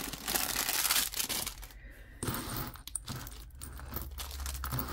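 Crinkling of a small plastic bag and light clinks of metal costume jewelry being handled, densest in the first second and a half and then thinning to scattered clicks.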